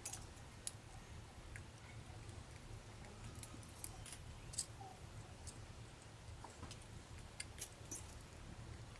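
Scattered light clicks and taps of small camera parts and hand tools being handled during disassembly of a compact camera. There are a few clicks around the middle and a quick cluster near the end, over a steady low hum.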